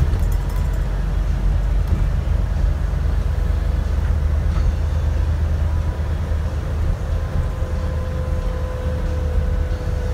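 Alexander Dennis Enviro400 MMC double-decker bus on the move, heard from on board: a steady low engine and road rumble, with a faint whine coming in about halfway through.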